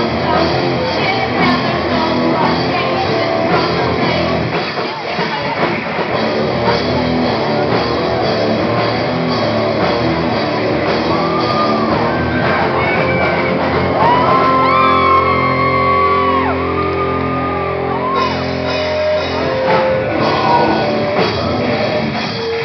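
Live rock band playing loudly: guitars, bass and drums, with a singer's voice over them.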